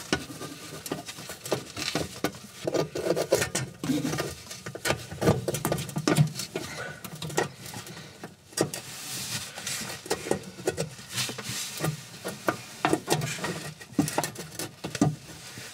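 Metal tubes of a replacement fan-oven heating element being fed through a hole in the oven's steel back panel: irregular clicks, taps and scraping as metal knocks and rubs against metal.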